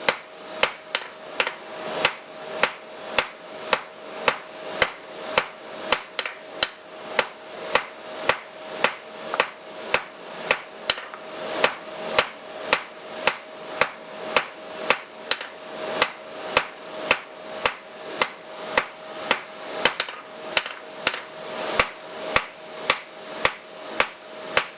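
Hand hammer striking hot steel on an anvil in a steady rhythm of a little over two blows a second, with a ring carrying between blows, as the tapered end of a punch is rounded off from octagon to round.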